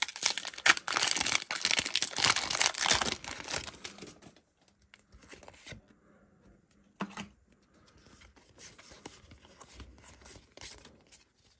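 Foil Pokémon booster pack wrapper being torn open and crinkled for about four seconds. Then quieter handling of the cards follows, with one light tap about seven seconds in.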